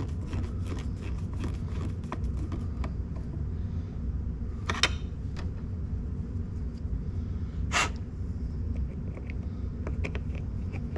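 Scattered light clicks and knocks of hands working dashboard parts loose to get at a headlight switch, with two sharper clicks a few seconds apart, over a steady low hum.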